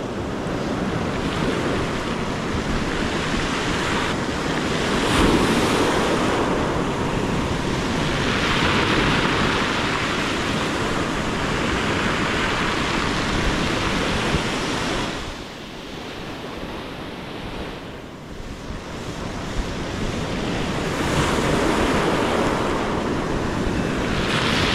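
Ocean surf breaking and washing up a pebble beach, swelling and fading every several seconds with a quieter lull about two-thirds of the way through, and wind buffeting the microphone.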